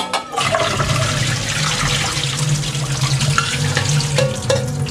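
Water poured from a steel pan through a metal colander into a stainless steel sink, splashing and draining steadily as soaked jackfruit pieces are strained. It opens with a sharp metal clank and tails off near the end.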